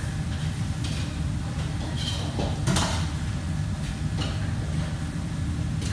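Kitchen background: a steady low hum with scattered clinks and knocks. The loudest is a sharp knock about three seconds in.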